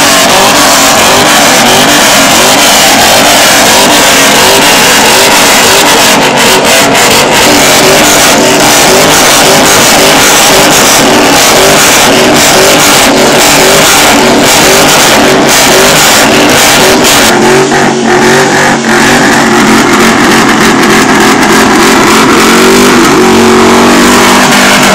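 Car engine revving hard very close, so loud that the recording is overloaded throughout. Near the end the engine pitch climbs as the car accelerates.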